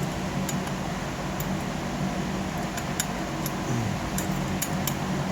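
Steady low hum with about nine light, sharp clicks and taps scattered through it, as small metal hardware is handled during a hands-on repair.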